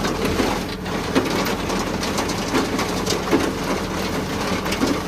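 A tractor engine runs steadily while a trailed feed-out wagon's conveyor discharges chopped green maize silage. Over the engine comes a continuous clattering rattle from the wagon's moving parts, with a few louder knocks.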